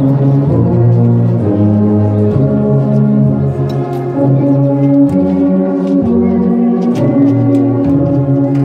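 Brass band led by euphoniums and tubas playing a slow tune in long held chords, with strong low notes.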